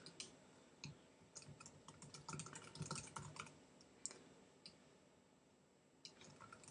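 Faint computer keyboard typing: irregular key clicks in quick bursts, with a lull of about a second and a half near the end.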